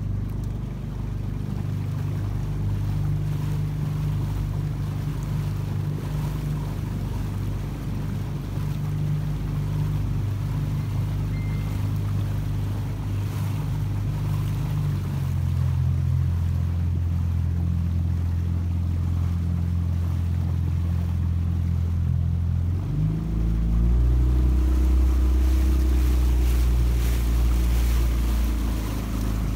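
Fishing boat's engine running steadily, with water rushing along the hull. The engine note steps lower about halfway through, then lower and louder again a few seconds before the end.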